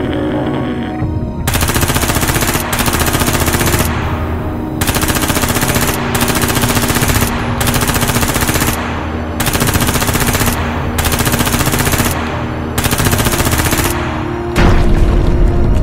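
Machine-gun fire in about eight bursts of a second or so each, over background music, with a heavier low boom near the end.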